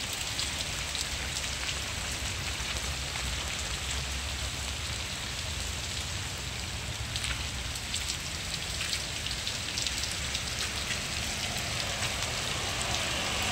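Heavy downpour: steady rain hissing on pavement, roofs and foliage, with a low rumble underneath.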